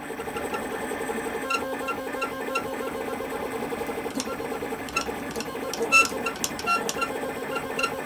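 LulzBot 3D printer printing, its stepper motors whining steadily with a fast flutter, broken by short high chirps and ticks as the print head and bed change direction.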